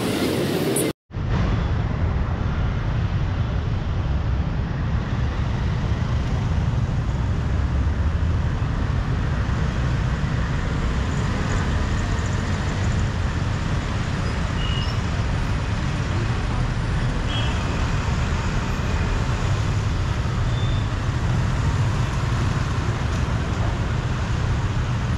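Steady rumble of road traffic and vehicle engines, with a brief dropout about a second in.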